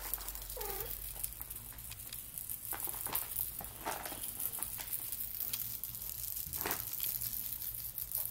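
Faint rustling with a few soft, scattered clicks, and one brief faint vocal sound about half a second in.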